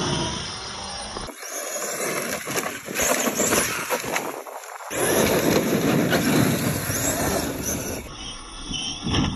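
Arrma Kraton 8S EXB, a large brushless electric RC truck, driving hard over loose dirt: motor running and tyres throwing up dirt. The sound changes abruptly three times as short clips are cut together.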